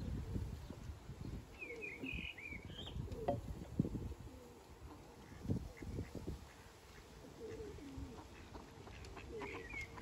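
Birds calling outdoors: a cluster of short, high chirps a couple of seconds in and another near the end, with a few lower calls in between, over a low, uneven rumble on the microphone.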